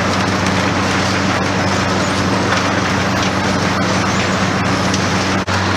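Engine-driven machinery running steadily: a low, even engine hum under a loud, constant rushing noise. It breaks off for an instant near the end and then carries on at a slightly different pitch.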